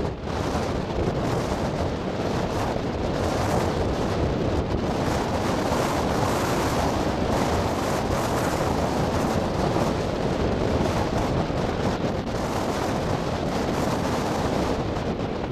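Strong wind rushing and buffeting the microphone, a steady loud noise with gusty swells.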